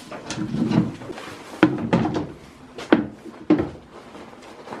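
Irregular knocks and clatters of wood and a wire-mesh gate in a goat pen, with a few sharp single knocks from about a second and a half in.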